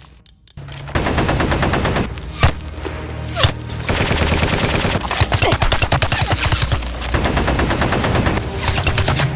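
Rapid machine-gun-style gunfire sound effects over background music. After a brief near-silent gap at the start comes dense, fast firing, with two louder hits about two and a half and three and a half seconds in.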